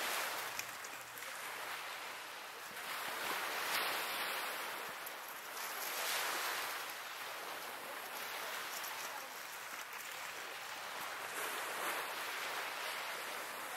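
Small waves washing in on a shingle beach: a hiss that swells and fades every two to three seconds.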